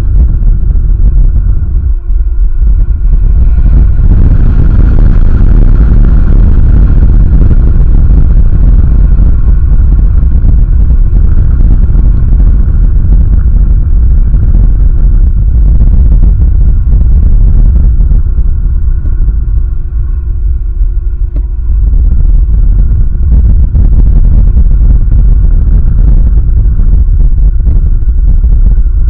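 Wind buffeting the outdoor nest camera's microphone: a loud, steady low rumble that eases briefly about two-thirds of the way through.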